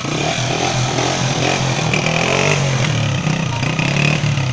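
Honda motorcycle engine running steadily, which the owner says is fed with HHO gas from a homemade water-electrolysis generator instead of petrol.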